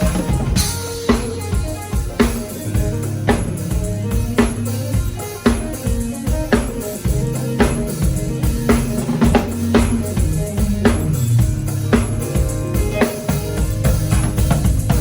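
Music with a drum kit playing a steady beat of kick and snare hits over a low, moving bass line.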